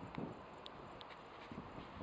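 Faint outdoor background hum with two low thumps, wind or handling on the microphone, and a few short, high ticks.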